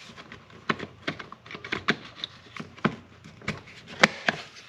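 Irregular sharp clicks and knocks of hard plastic parts being handled and fitted together on a string trimmer's spool head, about a dozen over a few seconds, the loudest about four seconds in.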